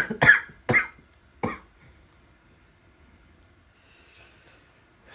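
A man coughing four times in quick, sharp bursts within the first second and a half, the first two loudest.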